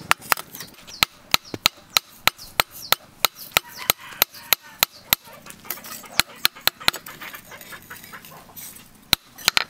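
Hand hammer striking a knife blade on an anvil in a steady rhythm of sharp blows, about three a second, thinning out after about seven seconds, then two last blows near the end.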